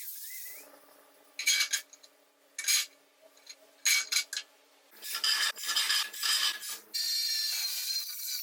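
A hand tool scraping on metal in short strokes: a few separate strokes, then a quicker run of them, and a steadier rub near the end.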